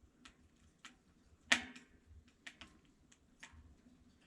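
Faint, irregular sharp clicks and ticks, with one louder click about a second and a half in.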